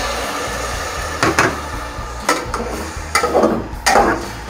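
Metal spoon scraping and knocking against an aluminium pot about four times while stirring shredded cabbage and carrots, after a splash of water has gone in with a steady hiss.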